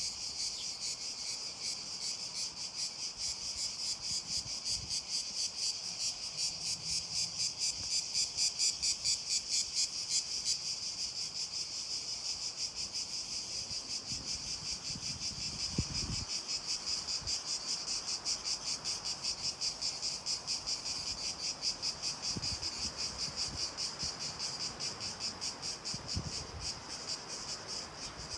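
Cicadas singing in chorus: a steady, high-pitched buzz that pulses rapidly and without a break.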